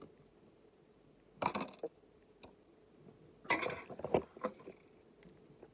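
Handling noise: two short bursts of rustling and knocks, about one and a half seconds in and again around three and a half to four seconds in, as things are moved about and a hairbrush is picked up.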